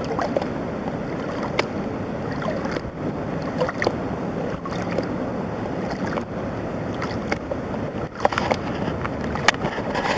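Water sloshing and swirling in a plastic gold pan as it is dipped and shaken in shallow flowing water, with a few sharp clicks scattered through it. The pan is being worked down to its last heavy concentrates near the end of panning.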